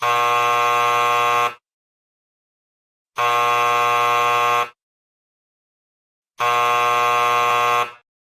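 An electric buzzer sounding three times, each a steady buzz of about a second and a half with a pause of about a second and a half between. These are the theatre's traditional three signals announcing that the show is about to begin.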